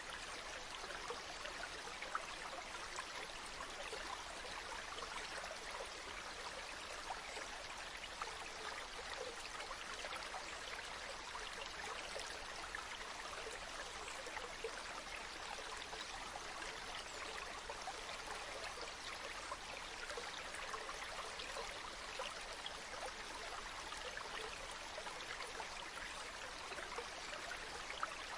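Running water, a steady rush with constant fine splashing and trickling and no surges or breaks.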